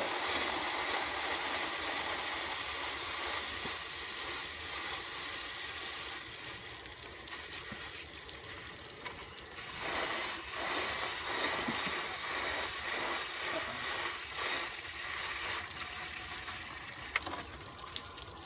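Water gurgling and trickling in the test tub around a vintage outboard's lower unit, a steady wash that slowly fades.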